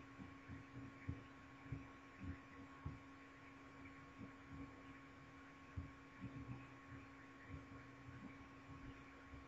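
Near silence on a call line: a faint steady electrical hum, with soft low thumps at irregular intervals.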